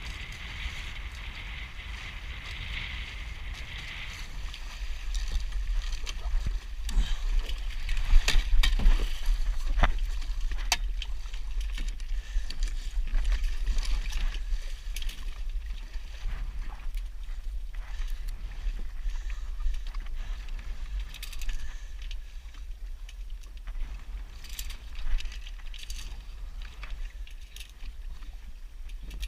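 Wind buffeting the microphone and water rushing and splashing along the hulls of a Hobie 14 catamaran sailing fast in strong wind. A run of sharp splashes and slaps comes about a third of the way in, the loudest part.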